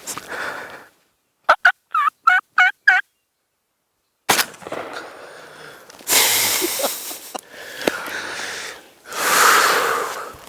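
A turkey calling: a quick series of about six short, sharp notes, each bending in pitch. After a pause comes rustling noise with two louder stretches.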